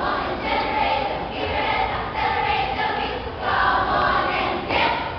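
A large group of young voices chanting a cheer together in unison, in short rhythmic phrases.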